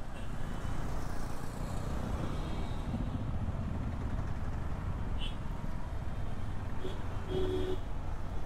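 KTM 390 Adventure's single-cylinder engine running at riding speed in city traffic, a steady low rumble mixed with wind and road noise. A brief beep sounds near the end.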